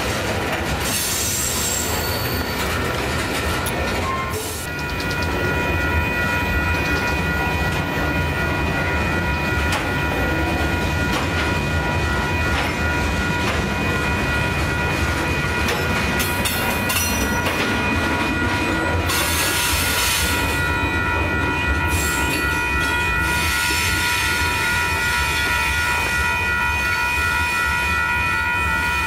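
Tank cars and covered hoppers of a mixed freight train rolling past on curved track. Steady high-pitched wheel-flange squeal sounds over the rumble and clack of the wheels.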